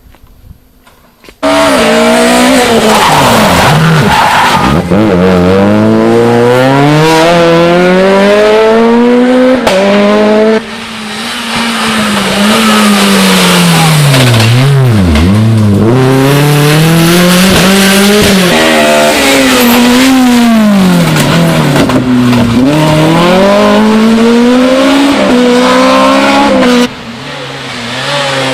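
Rally cars driven hard on a special stage: their engines rev high and drop again over and over through gear changes and lifts, with tyre noise. Near the start there is a moment of near quiet, and the sound cuts abruptly from one car to the next about ten seconds in and again near the end.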